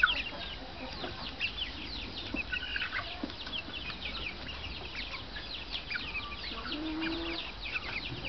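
A group of young silkie chickens peeping continuously, many short, high, falling peeps overlapping from several birds at once, with one short lower call about seven seconds in.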